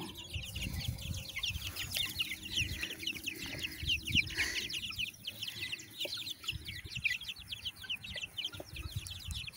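A flock of young chicks peeping continuously, many short, high, falling peeps overlapping one another.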